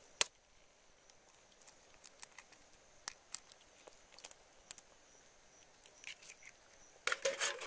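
An egg being cracked and pulled apart by hand over a metal cooking pot: one sharp tap a quarter second in, then faint scattered clicks of shell, and a short run of louder clicking near the end.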